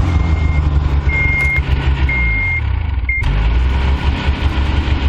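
A vehicle engine running just after a cold start, its pitch falling back partway through, while a single high electronic beep sounds about once a second. The beeps stop at a sudden break about three seconds in, and the engine keeps running.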